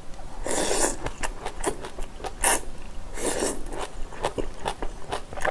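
A person eating up close: a few short slurps as strands of food are sucked into the mouth, with wet chewing clicks in between.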